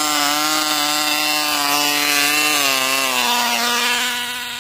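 Cox .049 two-stroke glow engine of a tether drag car running flat out with a high, steady buzz; near the end its pitch drops slightly and it fades as the car runs away down the tether line.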